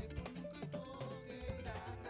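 Background music: a melody over a steady drum beat.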